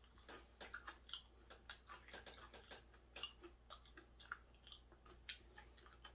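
A person chewing a mouthful of food with the mouth closed: faint, irregular soft clicks and smacks.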